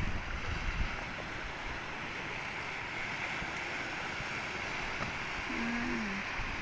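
Sea waves breaking and washing up a beach: a steady hiss of surf, with wind rumbling on the microphone in the first second. A short faint pitched call sounds about five and a half seconds in.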